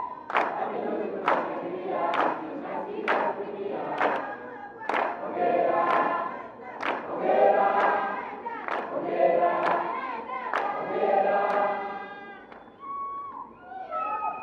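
A crowd singing together in chorus, with a sharp beat marking a steady pulse a little under a second apart. The singing fades out about two seconds before the end, leaving a few short high wavering cries.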